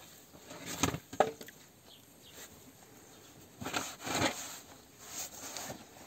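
Short rustling and scraping handling noises as a freshly baked round loaf is taken from a wood-fired clay oven and wrapped in cloth, in a few brief clusters about a second in and around four seconds.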